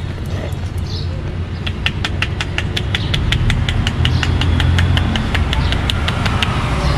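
Fast, even slapping of a street barber's hands on a man's head during an Indian head massage, about six sharp pats a second, starting about two seconds in and stopping near the end. Low street traffic rumble runs underneath.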